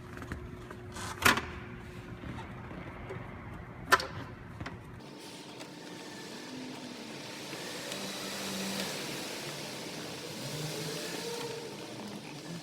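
Two sharp clicks about three seconds apart, from plastic electrical connectors and trim being worked loose around a car's gear selector. A steady hiss follows.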